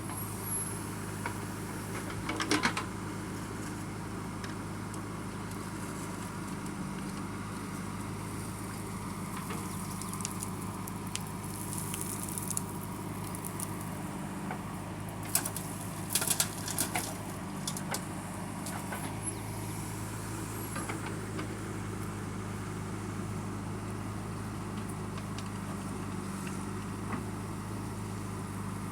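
Heavy diesel engine running steadily at an even, low pitch, with short clatters about two and a half seconds in and again around fifteen to seventeen seconds in.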